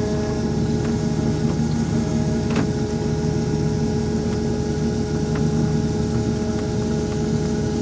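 Combine harvester running steadily while shelling corn: an even machine drone holding several constant tones, with a few faint clicks.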